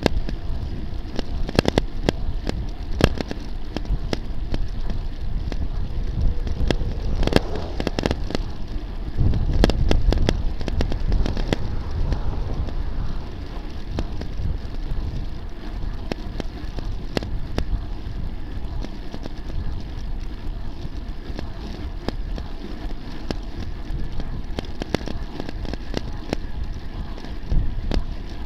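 Riding noise of a road bicycle on asphalt, picked up by a bike-mounted camera: a steady rush of wind on the microphone and tyre noise, with frequent sharp clicks and rattles. The wind rumble swells for a few seconds near the middle.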